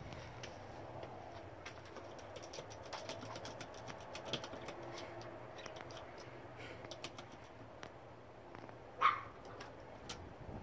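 Small dog behind a glass door whimpering faintly, with one short, louder yip about nine seconds in and light clicks throughout.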